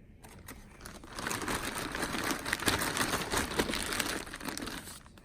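A plastic bag crinkling and rustling for about four seconds while it is handled, with many small crackles.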